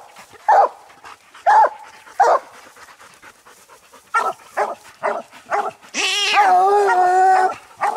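Coonhounds barking treed at a raccoon up the tree: a few single barks, then a quick run of short chop barks about four seconds in, then one long drawn-out bawl.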